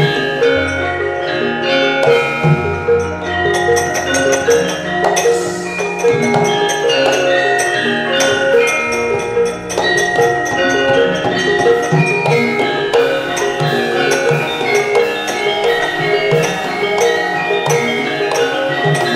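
Javanese gamelan ensemble playing: bronze metallophones and gongs ring out in dense, overlapping notes, with short percussive strokes throughout.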